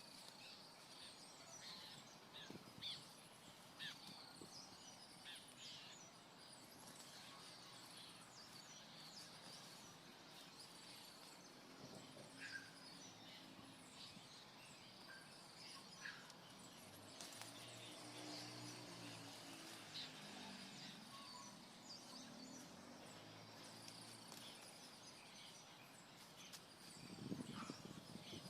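Faint outdoor ambience with scattered short bird chirps. A faint low hum comes and goes in the middle, and there is a brief louder rustle near the end.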